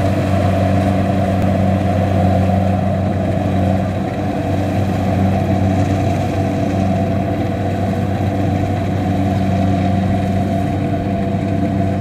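Kubota DC-70 combine harvester's diesel engine running at a steady working speed as the machine cuts rice, a constant loud drone with a steady hum.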